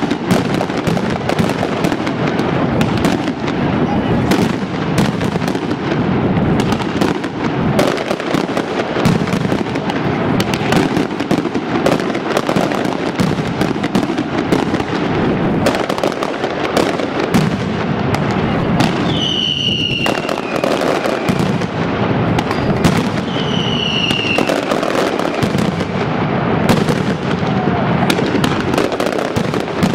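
Mascletà firecrackers going off as a dense, continuous barrage of bangs in very rapid succession. In the second half, a few short high whistles, each falling slightly in pitch, cut through the bangs.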